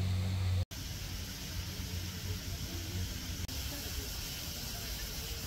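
Street ambience: a steady low engine hum, then after a sudden cut an even hiss of traffic-like noise with faint distant voices, broken by another brief cut about three and a half seconds in.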